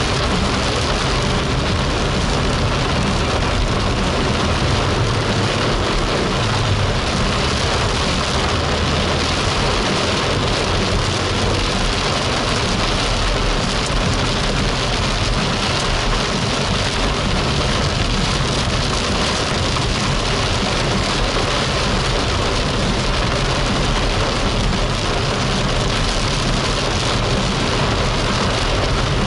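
Heavy rain pelting the roof and windshield of a moving car, heard from inside the cabin as a steady, loud hiss, with the car's road noise rumbling underneath.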